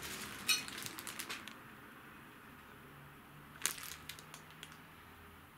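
Clear plastic bag crinkling as a pair of packaged brake levers is handled in it: a flurry of short crackles in the first second and a half, and one sharper crackle about three and a half seconds in.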